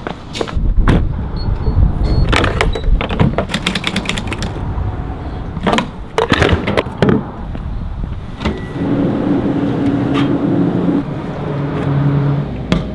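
Gas-station handling sounds: a string of footsteps, clicks and knocks, then a gas pump nozzle in use with a steady pump hum through the second half, and a few more knocks near the end as drinks are taken from a store cooler.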